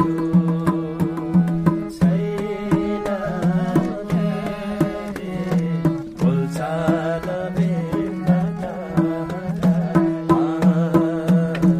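Music played through a PA sound system for a sound check: quick drum strokes and a wavering melody over sustained low notes.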